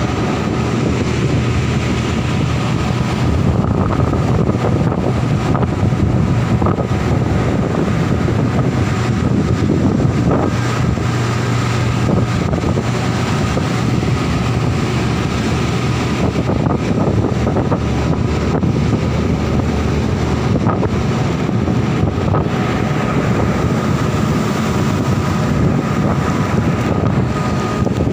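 Heavy diesel machinery running steadily, with a low drone and a thin steady whine on top, while strong wind buffets the microphone.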